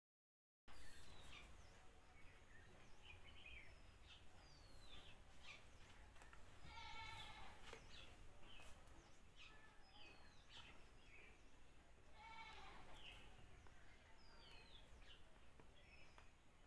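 Faint animal calls in the background: two short wavering cries about five seconds apart, and a thin falling chirp repeated every second or two, over a low steady hum.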